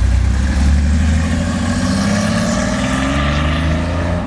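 Porsche 911 Cabriolet's air-cooled flat-six engine pulling away under throttle. A steady low engine note rises in pitch from about a second and a half in as the car accelerates.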